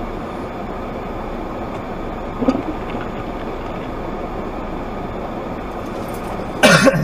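Steady driving noise heard from inside a car on a snowy road, with a brief sharp sound about two and a half seconds in and a loud short burst near the end.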